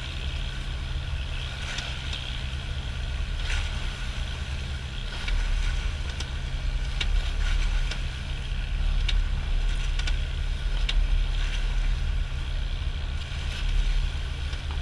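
Outrigger fishing boat's engine running steadily while underway, a constant low drone, with water rushing and splashing along the hull and outrigger floats. A few faint clicks or knocks are heard through it.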